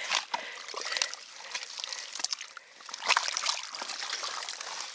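Wet mud and water squelching and dribbling as a buried metal find is worked loose and pulled out of waterlogged ground, with irregular crackles and scrapes that grow louder about three seconds in.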